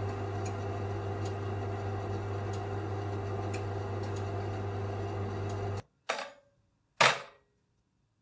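Electric oven running with a steady hum and light ticks about once a second, cutting off suddenly a little before six seconds in. Two sharp clacks follow, the second the louder.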